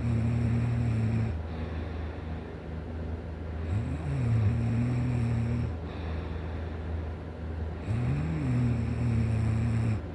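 A person snoring in sleep, with a rhythmic snore about every four seconds. Each snore lasts about two seconds: a brief rise and fall in pitch, then a steady low drone. It is heard near the start, about four seconds in, and again about eight seconds in.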